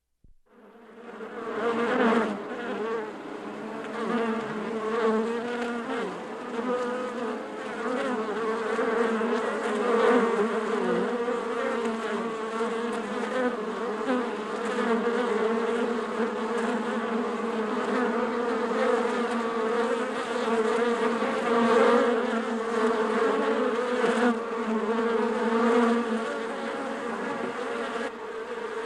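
A swarm of bees buzzing, many overlapping wavering drones that fade in over the first second or two and then hold steady, swelling a little now and then.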